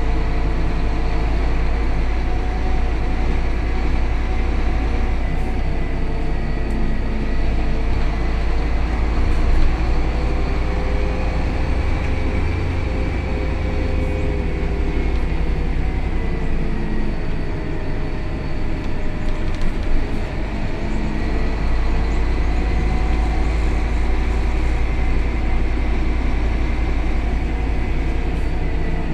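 Scania K280 city bus heard from inside the passenger cabin while under way: a steady low engine and drivetrain rumble with road noise. A faint whine drifts gently up and down in pitch as the bus speeds up and slows, with a couple of brief rattles or knocks along the way.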